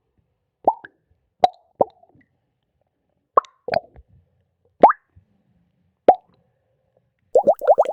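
Soft, short bubble-burst pops, a subtle pop sound effect: about seven single pops spaced irregularly, then a quick run of many pops near the end.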